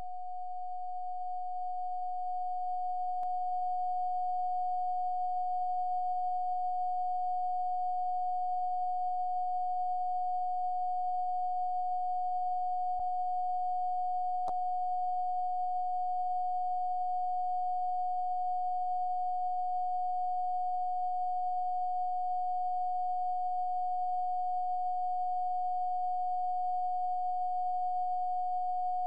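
A steady, unchanging pure sine tone of about 729 Hz, growing a little louder over the first few seconds and then holding level.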